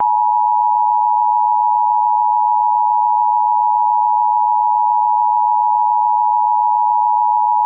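Emergency alert system attention tone: one loud, steady electronic tone just under 1 kHz, held unbroken, signalling that an emergency broadcast message follows.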